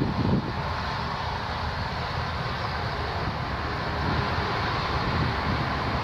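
Steady rumble and rush of a Fokker 100's Rolls-Royce Tay turbofan engines as the jet rolls out along the runway after landing.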